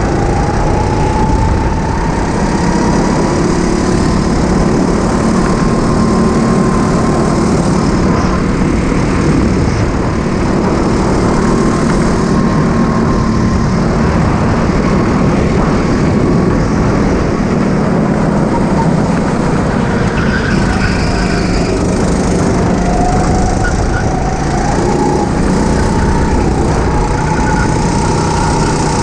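Go-kart engine running hard and continuously, its note climbing and dropping as the kart accelerates and slows.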